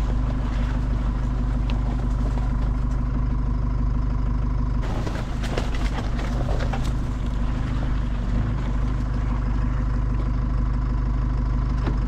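Truck engine running steadily with a constant low drone and a faint steady whine, and a few light rattles and clicks around the middle.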